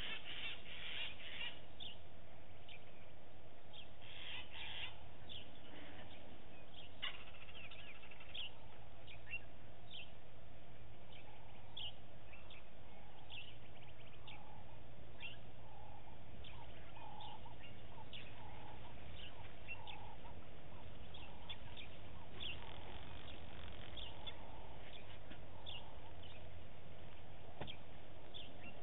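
Wild birds calling: many short chirps throughout, with a lower call repeated about once a second in the middle stretch, over a steady low hum.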